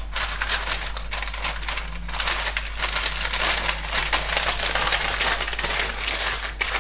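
Sheet of paper foil (food-wrapping paper) crinkling and rustling as it is rolled tightly around a date roll by hand, a continuous run of small crackles.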